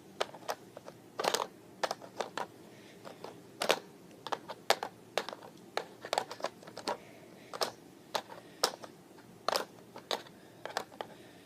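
Irregular light clicks and knocks of a plastic toy gymnast beam set being handled and worked, sometimes several in quick succession, with a few louder taps scattered through.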